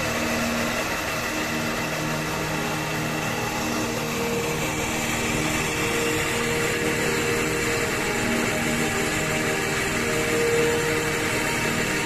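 A machine's engine running steadily, with a dense hiss over it and a slight swell about ten and a half seconds in.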